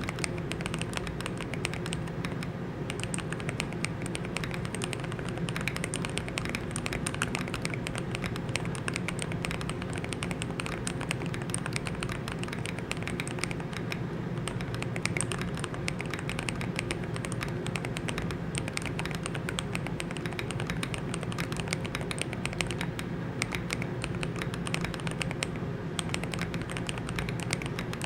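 Continuous fast typing on a modded Glorious GMMK Pro mechanical keyboard with double-shot PBT keycaps: a dense, unbroken stream of keystrokes, many a second.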